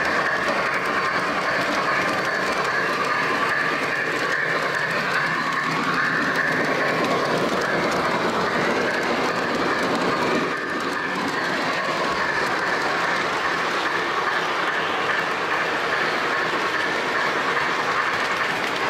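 O gauge three-rail model train running steadily along the track, its wheels rolling and clicking over the rail joints, heard close up from a camera riding on a flat car in the train.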